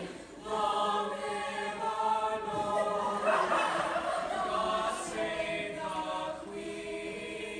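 A group of voices singing together in held, harmonised notes, phrase by phrase, with no instruments heard.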